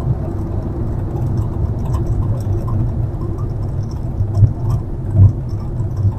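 Inside a moving Toyota HiAce van: a steady low road and engine rumble, with a faint intermittent squeak ('kyuru-kyuru') coming from behind the driver's seat on the right side. Two louder low bumps past the middle.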